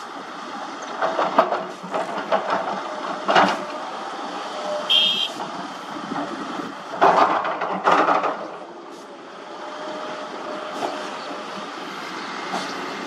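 Komatsu hydraulic excavator's diesel engine running steadily, with several loud crashes as bucket loads of earth drop into a steel dump truck bed. The two loudest come about seven and eight seconds in.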